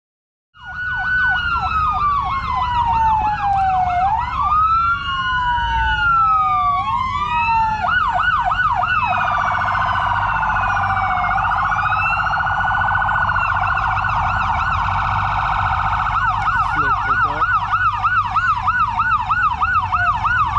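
Several emergency-vehicle sirens sounding at once, overlapping slow wails with fast yelps at about three cycles a second, over a low rumble. They start abruptly about half a second in.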